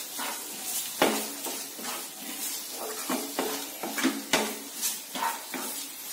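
A wooden spatula stirring and scraping thick onion-tomato masala in a non-stick kadai, with irregular knocks of the spatula against the pan over a soft sizzle.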